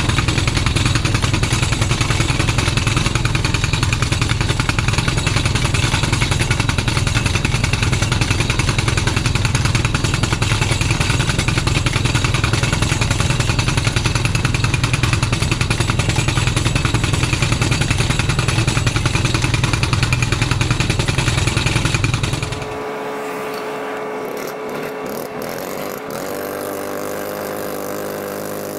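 Air-powered rock drill boring into bedrock: rapid, loud hammering mixed with the rush of air blowing dust out of the hole. It cuts off about 23 seconds in, leaving a steady engine hum.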